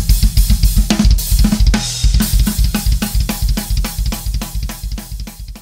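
Drum kit playing a steady groove, with bass drum, snare and hi-hat strokes and a cymbal wash about two seconds in, fading out toward the end.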